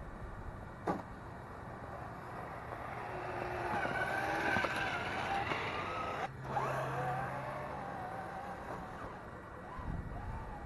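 Traxxas TRX-4 RC crawler's electric motor and gear train whining as it climbs a snow bank, the pitch wavering up and down with the throttle. A short click about a second in.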